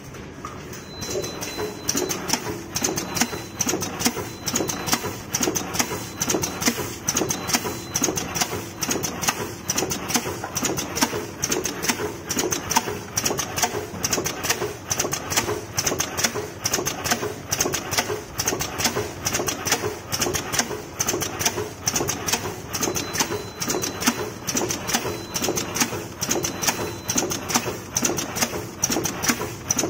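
Vertical form-fill-seal packing machine starting up after its start button is pressed, then running with a fast, steady mechanical clatter. A faint high whine comes and goes under it.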